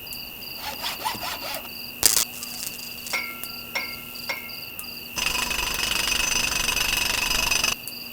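A small electric motor runs with a loud, even buzz for about two and a half seconds, starting suddenly about five seconds in and cutting off abruptly, over steady high insect chirping and a few clicks.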